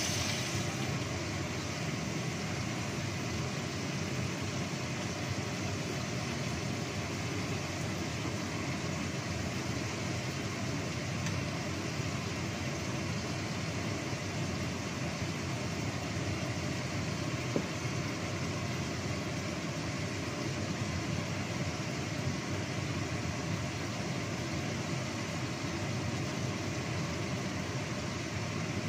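Chilies frying in oil under the lid of a covered wok, a steady muffled sizzle, with one small click a little past the middle.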